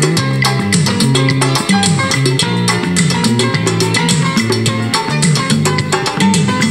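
Instrumental music with a moving bass line and a steady drum beat, without singing.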